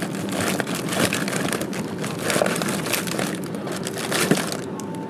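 Plastic wrapper of a frozen Hostess Ding Dong ice cream sandwich crinkling and crackling as it is handled, in a dense irregular run.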